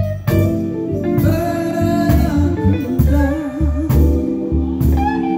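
Live gospel band playing a slow blues-style groove: Hammond organ holding chords over electric bass, electric guitar and a drum kit with a steady kick-drum beat and cymbal hits.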